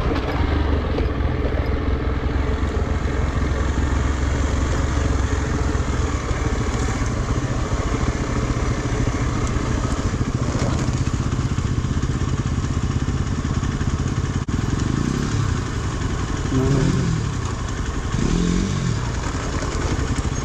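Single-cylinder dual-sport motorcycle engine, most likely a Hero Xpulse 200, running at low speed in a low gear as it climbs a rough rocky trail. Its note is steady at first, then rises and falls a few times near the end.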